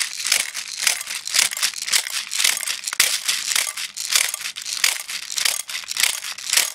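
Airsoft speed loader being pumped, pushing 6 mm BBs into an M4-style magazine: a fast, even run of sharp rattling strokes, several a second.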